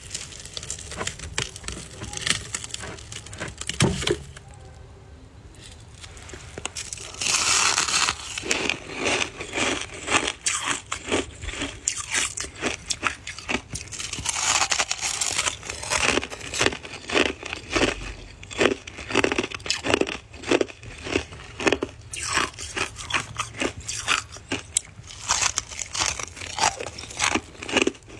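Close-miked biting and chewing of soft white ice (freezer frost): a fast, dense run of crisp crunches, with a quieter lull about four to six seconds in.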